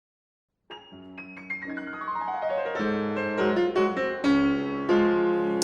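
Intro piano music: after a brief silence, a descending run of notes that builds into louder, sustained chords.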